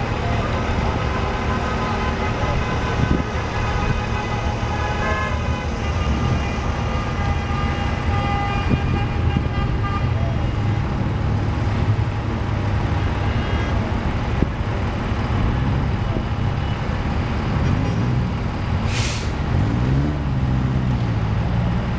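Road traffic passing on a highway: a steady rumble of engines and tyres, with vehicle horns honking on and off over the first several seconds and a short hiss near the end.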